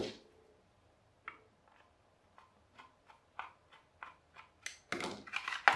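Small irregular clicks and taps of hard plastic and metal parts being handled while a hand mixer is taken apart, with a louder clatter of handling near the end.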